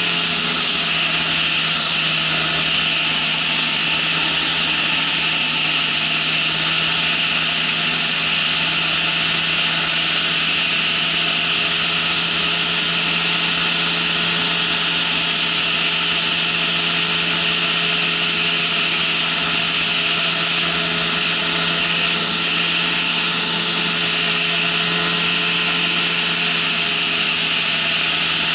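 Engine and propeller of an ultralight trike running steadily at cruise in flight, an unchanging drone mixed with rushing wind.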